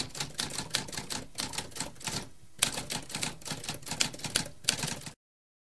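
Typewriter sound effect: keys clacking in quick, irregular strokes, with a short pause about two seconds in, then stopping suddenly about five seconds in.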